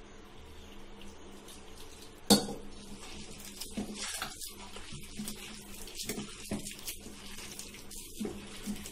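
Hand mixing wet wheat-flour batter in a stainless steel bowl, with irregular knocks and scrapes of the bowl against the counter. A single sharp metallic clank a little over two seconds in is the loudest sound.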